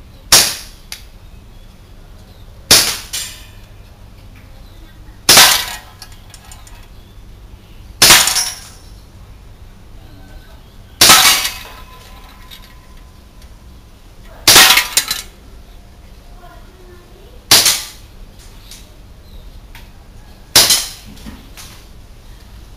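Eight shots from a WE TT33 gas blowback airsoft pistol, fired singly about three seconds apart as the pistol is snapped up and fired. Each is a sharp crack, and several are followed by a short rattle of the BB striking the hanging can target.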